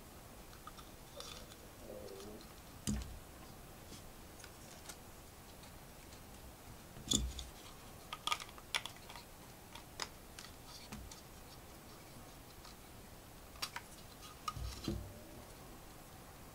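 Plastic LEGO pieces clicking and knocking as they are handled and pressed together, in scattered irregular clicks with a few heavier knocks.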